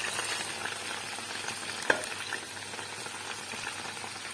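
Fried beef pieces sizzling as they go into a pan of hot marinade sauce, a steady frying sizzle with a single sharp knock about two seconds in.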